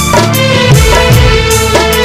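Live stage band playing the music of a Bhojpuri film-style song: electronic keyboard over a steady drum beat, with one long held note sliding slowly downward.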